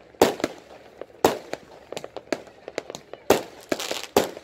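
Fireworks and firecrackers going off over the water: an irregular string of sharp bangs, several loud ones among fainter pops, with a burst of crackling just before the end.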